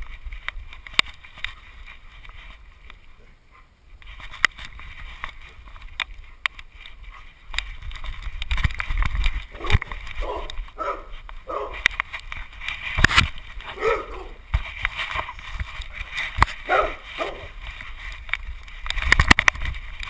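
Knocks, clicks and low rumbling handling noise from a GoPro camera strapped to a dog as it moves. In the second half come several short bursts of dog whimpering and yipping.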